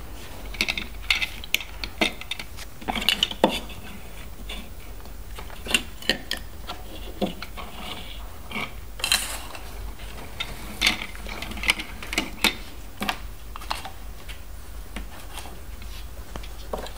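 Plastic LEGO DUPLO toy pieces clicking and clattering on a tabletop as they are handled and moved about, in scattered small knocks.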